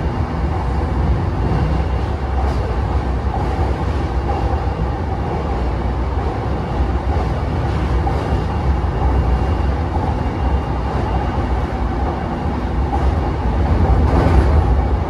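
Running noise of a JR East E233-5000 series electric train heard inside the passenger car at speed: a steady rumble of wheels on rail and the car body, with a clack from the wheels near the end.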